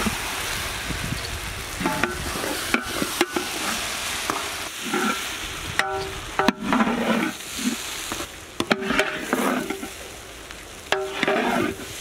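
Boiled basmati rice being turned into sizzling vegetables in a large metal cooking pot over a steady frying hiss. The metal ladle scrapes and knocks against the pot several times, with short ringing scrapes.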